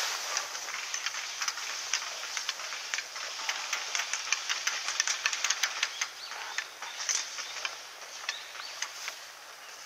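Grass and leafy brush rustling and crackling as someone pushes through it on foot, in quick irregular clicks that are busiest around the middle and thin out near the end.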